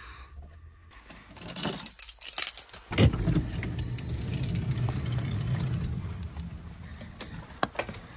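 Minivan sliding side door being opened from inside: rustling and small clicks, then a loud clack as the latch releases about three seconds in, followed by a low steady rumble for about four seconds as the door rolls back, with a couple of clicks near the end.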